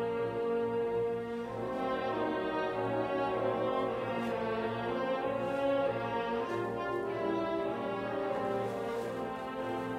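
Orchestral background music with long held notes.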